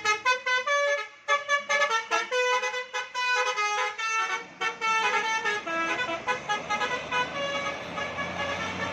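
Bus "telolet basuri" musical horn playing a quick tune of short notes, with a brief break about a second in. A low engine rumble rises under it in the second half.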